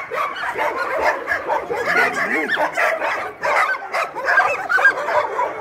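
Many shelter dogs barking and yelping over one another in a dense, continuous chorus.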